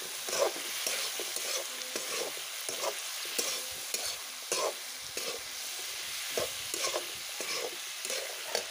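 Metal spatula stirring and scraping chicken and potato pieces around a metal kadai, repeated scrapes at an uneven pace over a steady sizzle of frying oil.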